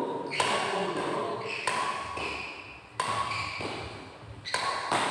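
Badminton rackets hitting a shuttlecock back and forth in a rally: sharp hits a little over a second apart, each followed by a brief ringing tone that dies away.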